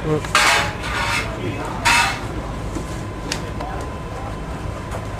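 Mechanics working on a rally car: two short hissing bursts in the first two seconds, then light clinks and knocks over low background noise.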